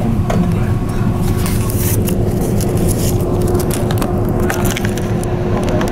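The icebreaker sightseeing ship's engines run with a steady low drone and a steady hum. Drift ice crackles and scrapes against the hull as the ship breaks through it, in a cluster of clicks through the middle.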